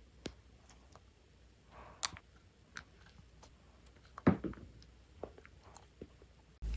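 Close-miked chewing of candy or chocolate: scattered crisp crunches and small mouth clicks, with the loudest crunch about four seconds in.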